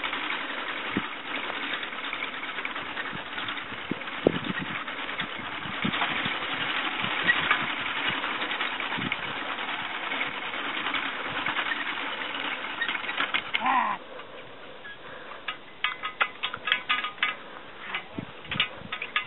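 Mule-drawn sickle-bar hay mower cutting grass: the reciprocating cutter bar and gearing make a steady rapid clatter. About 14 seconds in it turns quieter and breaks into separate metallic clicks and clanks.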